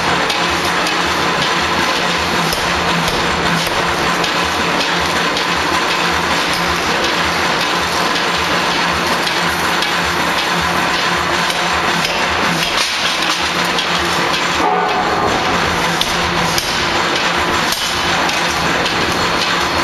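D51 ring rolling machine running as it rolls a red-hot steel ring, a loud, steady mechanical din of machine hum with constant rapid clattering knocks.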